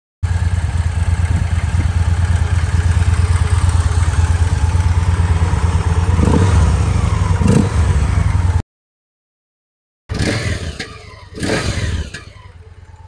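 Victory Vegas V-twin engine running steadily at idle, a deep even pulsing, until it cuts off abruptly about eight and a half seconds in. After a short silence the engine is heard again near the exhausts, swelling twice before dying away.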